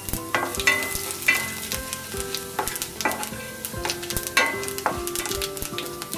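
Mustard seeds, dal and fennel seeds sizzling and crackling in hot oil in a metal kadai. A wooden spatula stirs them, scraping and knocking against the pan, with many sharp clicks throughout.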